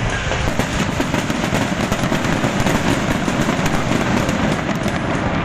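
New Year countdown fireworks going off in a dense, continuous barrage: a rapid crackle of many small bangs over a deep rumble.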